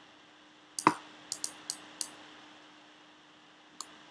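Sharp clicks of a computer mouse and keyboard: about six in the first two seconds, the loudest about a second in, and one more near the end, over a faint steady hum.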